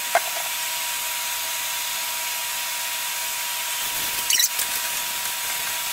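Handheld shower sprayer running, water hissing steadily onto a dog's head and coat during rinsing, with a thin steady tone under the hiss. A short squeak comes near the start and a brief splash about four seconds in.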